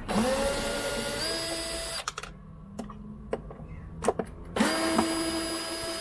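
Cordless drill-driver backing screws out of plywood: two runs of about two seconds each, the motor whine rising as it spins up and then holding steady. A few sharp clicks fall in the pause between the runs.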